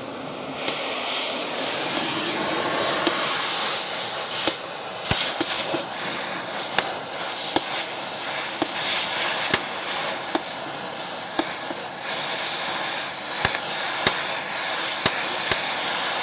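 Oxyacetylene cutting torch hissing steadily as it cuts through the seized cotter pin in a steel excavator track's master pin. From about five seconds in, sharp pops crackle irregularly over the hiss.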